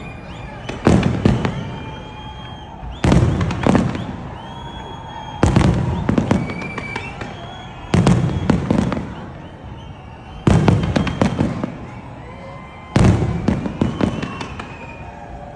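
Fireworks display: six heavy shell bursts, about one every two and a half seconds, each followed straight away by a quick cluster of sharper reports.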